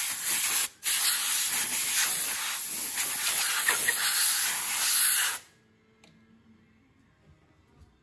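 Compressed air hissing hard from a nozzle at the mill, with a momentary break about a second in, then cutting off suddenly about five seconds in.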